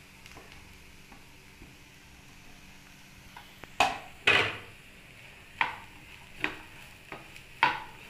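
A spatula stirring chopped vegetables in a frying pan, scraping against the pan in about five sharp strokes in the second half, the loudest just after four seconds in. Under it a faint, steady sizzle of the vegetables sautéing in oil.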